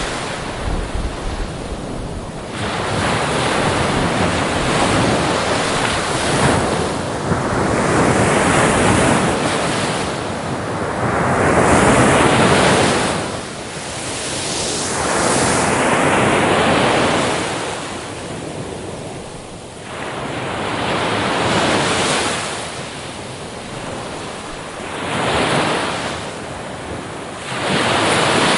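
Sea waves breaking on a shore, each surge of hissing surf swelling and fading over a few seconds, with wind on the microphone beneath.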